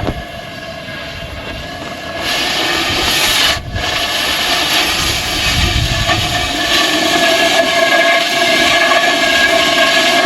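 Oxy-fuel cutting torch hissing as it cuts through heavy steel. The hiss jumps up about two seconds in and breaks off for an instant a little later, over a steady hum.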